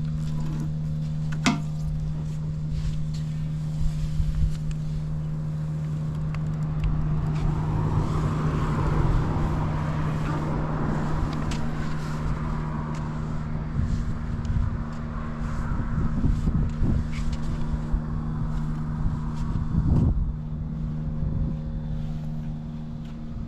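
BMW R1200R's boxer-twin engine idling steadily with no abnormal noise. A broad rushing noise swells through the middle and fades away.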